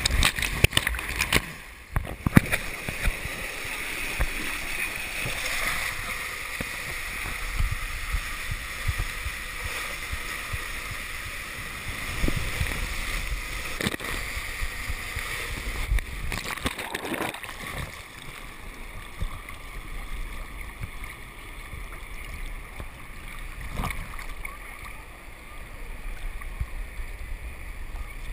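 Water rushing through an enclosed water-slide tube as a rider slides down it, with scattered knocks against the tube walls. About two-thirds through, a louder splash, after which the sound settles to a quieter wash of pool water.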